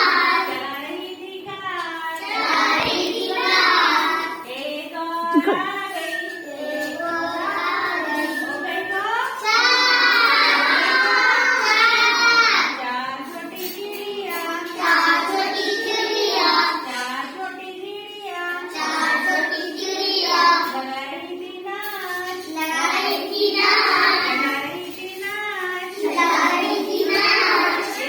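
A child singing a Hindi counting rhyme about a little bird.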